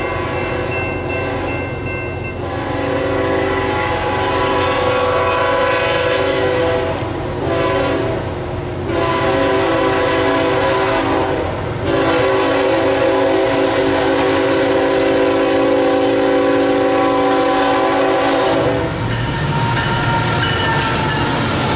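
Union Pacific GE ET44AH freight locomotive's air horn sounding for a road crossing: three long blasts with short breaks between them, the last held about seven seconds. Near the end the horn stops and the locomotives pass close by with a loud rumble and wheel clatter.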